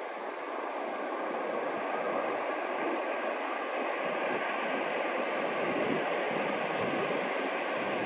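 Steady rushing of ocean surf on a beach.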